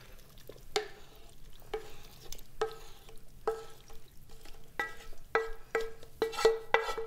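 Wooden spatula scraping curry out of a metal frying pan into a plastic container: a series of short scrapes and knocks, each leaving the pan ringing briefly. The strokes come faster, about two a second, in the last couple of seconds.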